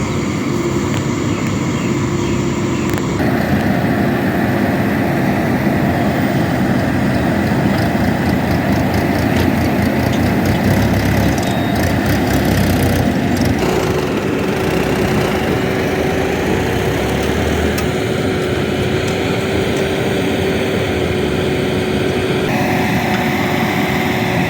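Diesel engine of a JCB 3DX backhoe loader running steadily with a constant hum. Its tone shifts abruptly a few times.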